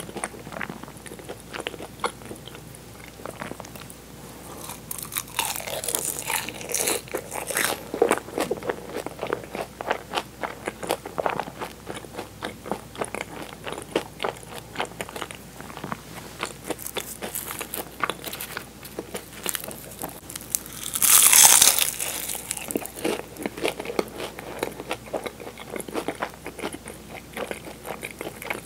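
Close-miked bites and chewing of flaky egg-tart pastry: dense, irregular crackly crunches with wet chewing in between, with one louder, longer noisy swell a little past two-thirds of the way through.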